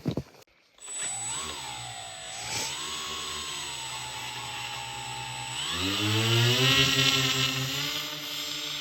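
A radio-controlled model seaplane's motor and propeller starting up about a second in and running at a steady pitch, then throttled up about five and a half seconds in, the pitch rising and the sound getting louder. A couple of short knocks come just before it starts.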